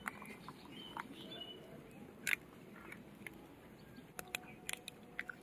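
Faint, scattered clicks and taps of a cracked eggshell being handled over a stainless steel bowl while the egg white is separated from the yolk, with one louder tap about two seconds in and a quick cluster near the end.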